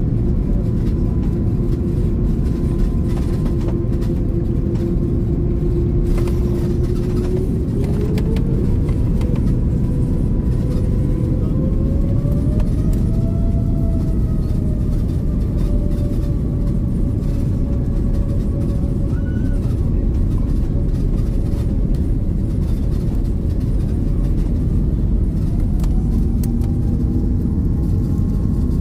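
Airbus A330-900neo cabin noise while taxiing: a steady deep rumble with a whine from the Rolls-Royce Trent 7000 engines that glides up in pitch about a quarter of the way in, swells and eases back midway, and rises again near the end as thrust is adjusted.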